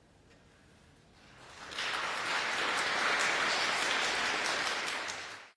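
Audience applauding at the end of a song, the clapping swelling in about a second and a half in after a quiet moment and cutting off abruptly near the end.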